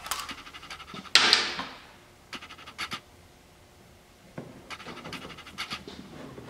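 Hand-work noises at the ATV: a sharp scraping rasp about a second in that fades out, then a few light clicks and soft scratchy rustling.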